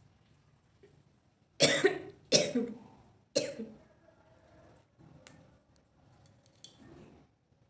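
A woman coughing three times in quick succession, harsh explosive coughs set off by the fumes of dry red chillies burnt over a candle.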